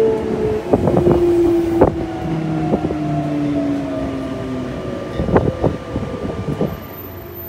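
Sotetsu 8000-series electric train heard from inside the car as it slows for a station stop: the traction motor whine falls in pitch, with irregular knocks of the wheels over rail joints, loudest around two seconds in and again around five to six seconds in.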